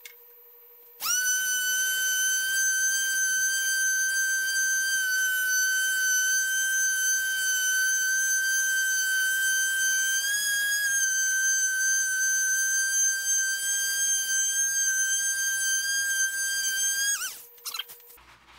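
Hand-held electric orbital sander with an abrasive pad running on the steel top of a surface grinder's magnetic chuck: a steady high motor whine that starts about a second in, shifts slightly in pitch around ten seconds in, and drops in pitch as it switches off near the end.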